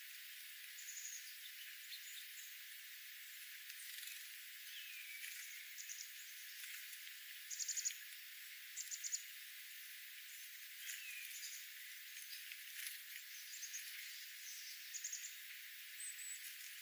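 Small wild birds chirping: scattered short, high chirps, some in quick runs of three or four, the loudest about halfway through, with a couple of lower falling notes, over a steady faint hiss.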